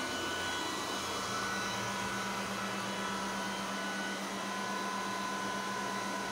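Cooling fans of a GPU cryptocurrency mining rig whirring steadily, with a low hum and a thin high whine over the rushing air.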